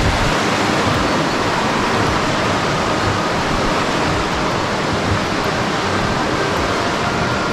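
Water rushing over the rocks of a river's rapids: a loud, steady rush.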